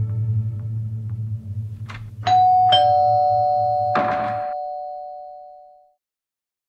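Two-tone doorbell chime, ding-dong: a higher note and then a lower one struck about half a second apart, each ringing out and dying away over a few seconds. A short burst of noise comes about four seconds in as the wooden double front doors are opened. Guitar music fades out in the first two seconds.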